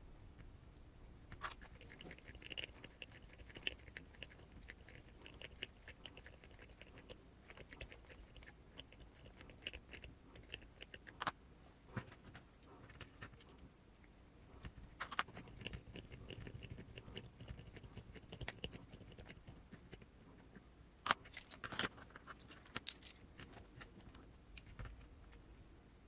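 Faint scratchy creaking and light clicks of small plastic and metal parts being worked by hand, as rod ends are screwed onto the suspension links of an RC crawler kit. A cluster of sharper clicks comes near the end.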